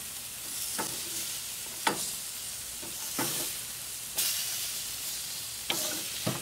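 Chicken breasts sizzling on a hot grill with a steady hiss. Metal tongs and a spatula click and scrape against the grates and grill mat about six times, loudest about two seconds in.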